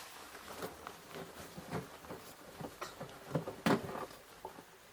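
Soft rustling and light irregular thumps of a duvet being pushed into a washing machine drum, with one sharper knock about three and a half seconds in.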